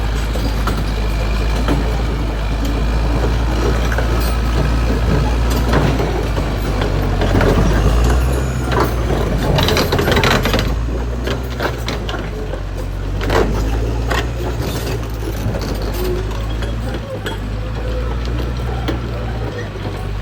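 Caterpillar D6R XL bulldozer running steadily with a low engine drone, and scattered knocks and clatter from its tracks. It is loudest about eight to ten seconds in.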